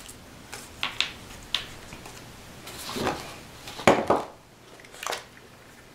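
Paper strips being handled and set down on a cutting mat: a few light taps and a rustle, with a sharper knock just before four seconds in.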